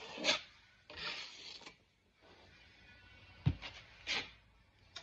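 Drywall taping knife scraping joint compound across a fiberglass-taped wall patch in several strokes, with a sharp knock about three and a half seconds in.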